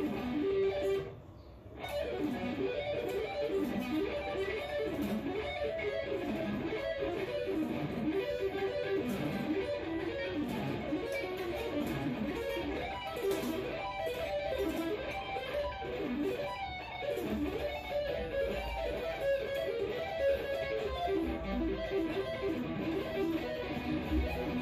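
Stratocaster-style electric guitar playing fast sweep-picked arpeggios, quick runs of notes rising and falling in pitch over and over. There is a brief pause about a second in.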